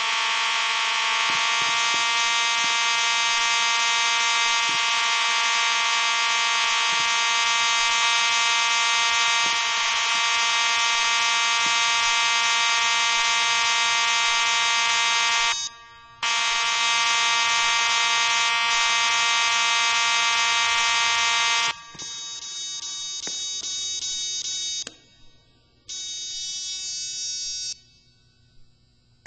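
A loud, steady buzzing alarm tone, held for about fifteen seconds, cutting out briefly, then sounding for about five seconds more before it turns quieter and stuttering and stops near the end.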